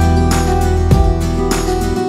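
Instrumental background music, a run of pitched notes.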